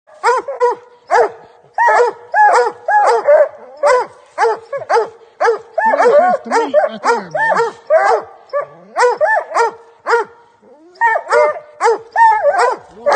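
Coonhounds barking treed, giving a fast run of loud, chopping barks, the sign of a raccoon up the tree. Barks of a deeper pitch come in about six to seven seconds in, and there is a short lull near the end.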